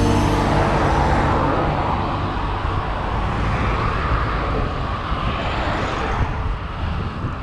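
Wind rushing over the microphone of a moving road bike, with tyre and traffic noise as cars pass in the oncoming lane; the rush swells in the first couple of seconds and again around five seconds in.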